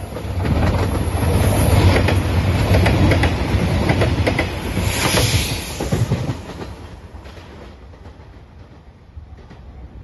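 JR Shikoku 2700 series diesel multiple unit passing at speed: a steady low engine drone with wheels clicking over the rail joints, loudest from about one to six seconds in, then fading away.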